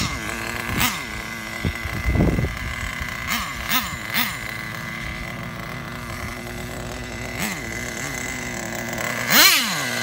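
Traxxas Jato 3.3 RC car's small nitro two-stroke engine idling with a buzzy note, blipped several times with short throttle revs that rise and fall quickly. The biggest rev comes near the end.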